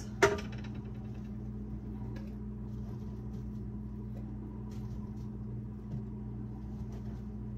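Strawberries being scooped into a two-cup measuring cup and tipped into a stainless steel stockpot: a short loud knock right at the start, then a few faint taps. A steady low hum runs underneath.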